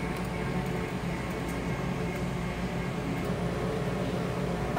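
Steady low mechanical hum with an even hiss beneath it, the background drone of running appliances or ventilation.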